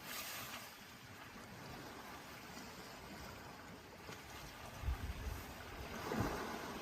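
Steady rushing outdoor nature ambience, with two soft low thumps about five and six seconds in.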